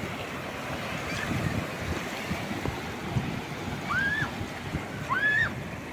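Calm sea waves washing and breaking on the shore. Two short rising-then-falling calls come through the wash about four and five seconds in.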